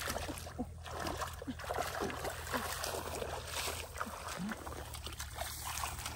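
Shallow muddy water splashing and sloshing in many small, irregular splashes, over a steady low rumble.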